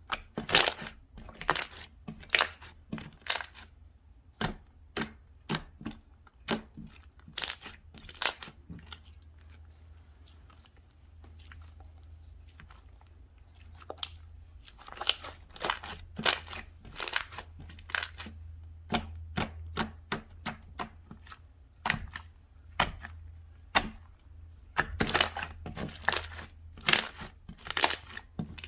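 Slime being squished and pressed by hand, giving clusters of sharp crackling pops and clicks, with a quieter stretch in the middle.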